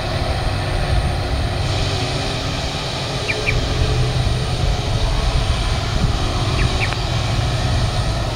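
Aircraft engines running at an airport: a steady rumble that grows a little fuller after a couple of seconds. A short high double chirp comes about every three seconds.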